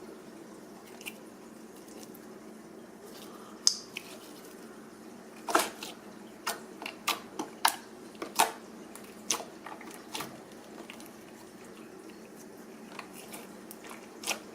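Firm fruit slime being squeezed and stretched by hand, giving a string of short wet clicks and pops.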